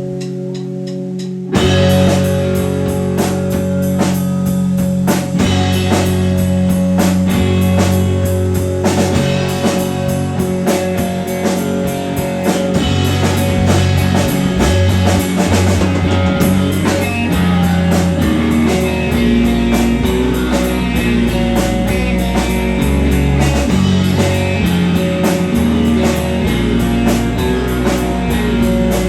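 Rock band playing live, loud and dense; the full band comes in with a sudden jump in volume about a second and a half in.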